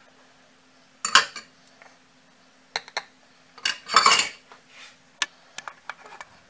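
Stainless steel saucepan and kitchenware clattering: a sharp clank about a second in, a couple of light clicks, then the loudest clatter about four seconds in as the pot is set down on the gas stove's metal grate, followed by a few light taps.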